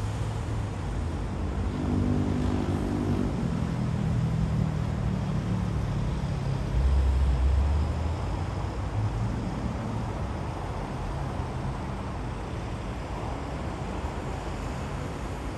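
Steady hum of city road traffic, with one vehicle engine passing that drops in pitch about three seconds in, and a brief low rumble around seven seconds.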